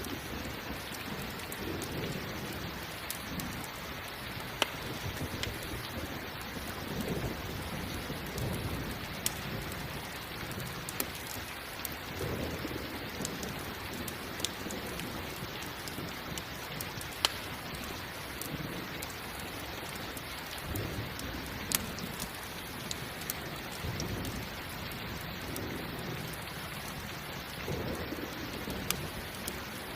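Steady rain hissing, with low rumbles of thunder swelling and fading every few seconds. Occasional sharp pops of a crackling campfire sound through it.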